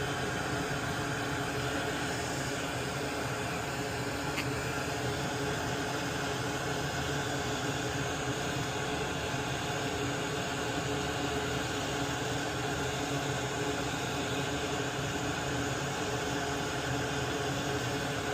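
Steady hiss and hum of a small fan-driven machine running, with one faint tick about four seconds in.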